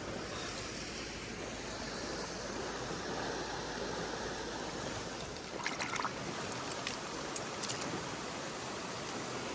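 Mountain stream water rushing steadily. About halfway through come a few short sharp clicks and taps.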